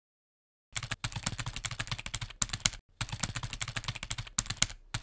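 Keyboard-typing sound effect: a fast run of key clicks, about ten a second, starting just under a second in with a brief break near the middle, matching on-screen title text being typed out letter by letter.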